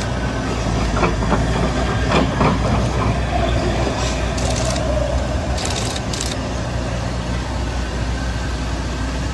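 Heavy truck's diesel engine running steadily as it hauls a lowboy trailer loaded with a tank. A few knocks come between one and two and a half seconds in, and there are two short hisses around the middle.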